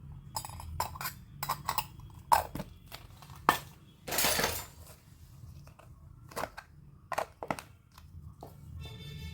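Miniature toy kitchen pieces clicking and clinking as they are picked up and set down, a run of separate light taps with a brief rustling scrape about four seconds in.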